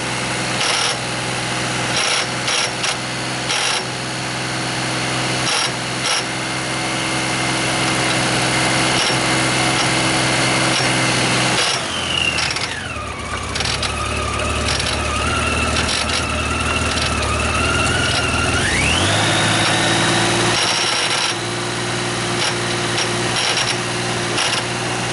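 Honda Gold Wing 1500's flat-six engine running, with a whining tone over it that drops sharply in pitch about halfway through, holds low, then rises back up some seven seconds later, and short clicks here and there. This is the abnormal noise the owner is showing.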